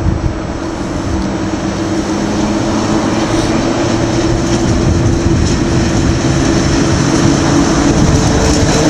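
EU07 electric locomotive pulling a passenger train away from a standstill, a steady electric hum with a few changing tones over rolling noise. It grows steadily louder as the train draws near.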